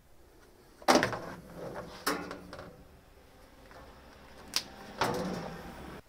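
Hard plastic top cap of a top-loading washing machine drum being unclipped and lifted off: a loud knock about a second in, a second knock about two seconds in, a sharp click near four and a half seconds, and then scraping and rattling near the end.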